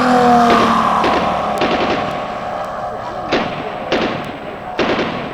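Machine-gun sound effect from a radio-controlled P-47 model's onboard sound system, firing short bursts roughly every three-quarters of a second over a steady engine drone.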